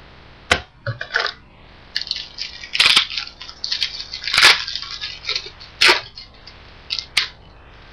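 Crinkling and rustling of a trading-card pack wrapper being torn open and handled, in crackly bursts that are busiest in the middle, with a few sharp clicks.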